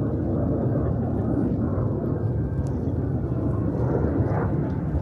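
Steady low rumble of Kawasaki T-4 jet trainers' turbofan engines.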